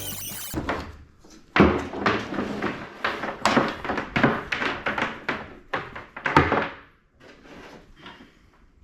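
Irregular knocks and thumps of wood framing work, about two or three a second for some five seconds, trailing off fainter near the end. A music bed cuts off right at the start.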